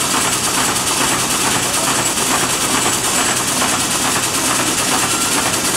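1904 American LaFrance steam fire engine running while pumping water, its steam engine and pump making a loud, steady, hissing mechanical noise.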